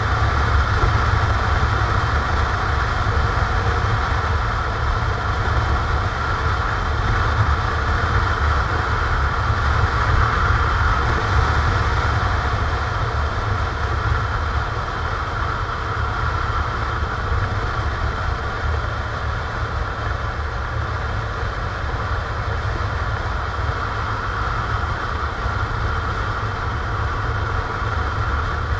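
Motorcycle engine running steadily while riding, under a heavy low rumble of wind and road noise on a bike-mounted camera.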